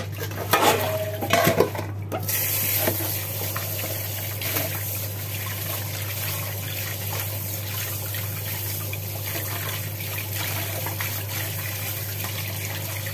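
Handling noises and a plastic bag rustling for the first couple of seconds, then a kitchen tap comes on suddenly and runs steadily over fish being rinsed and rubbed by hand in the sink.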